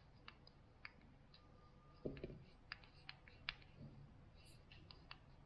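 Buttons and clickpad of an Apple TV Siri Remote being pressed: light, irregular clicks, with a duller knock about two seconds in as the remote is handled.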